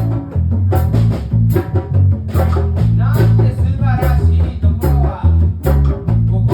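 Live band playing a reggae song: bass, guitar and drums in a steady beat, with a singer's voice coming in at times.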